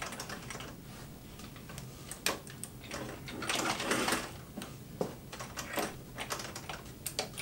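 Scattered light clicks and a short rustling swell about three and a half seconds in, from hands working the thread cone, thread and fabric at a vintage Singer 503A sewing machine. No steady sewing run.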